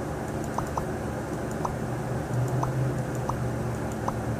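Dodge Charger's engine idling steadily, a low hum, with a few short faint high blips over it.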